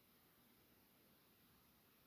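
Near silence: faint steady recording hiss.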